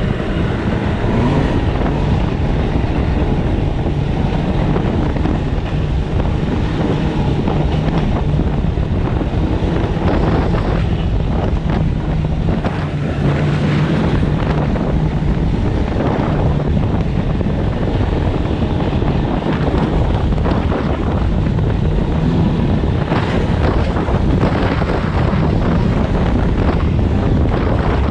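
Snowmobile engine running steadily while riding, heavily overlaid by wind buffeting the microphone.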